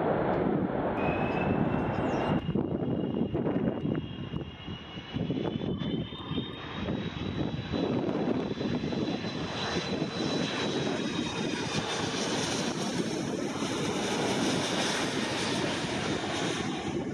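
Airbus A330-200 airliner's twin jet engines passing low overhead on final approach, a dense rushing roar with a thin high whine that climbs slowly in pitch over the first half and then fades away.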